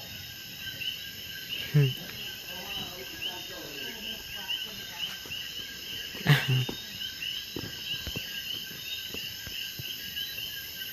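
Crickets chirping in a steady, pulsing night chorus. Two sudden sharp pops cut through it, about two seconds in and again about six seconds in.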